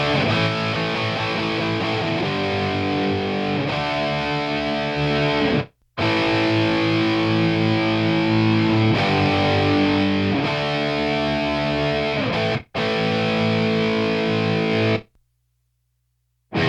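Heavily distorted, Marshall-style electric guitars playing big sustained power chords, the chords changing every couple of seconds and cut off abruptly twice. The guitars stop about a second and a half before the end, then crash back in at the very end.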